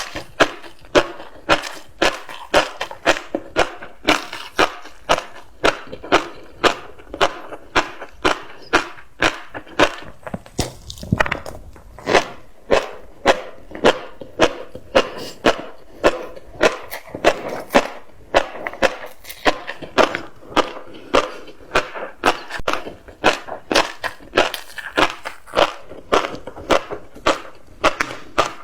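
Close-miked chewing of tobiko (flying fish roe), the little eggs crunching and popping between the teeth in a steady rhythm of about two bites a second.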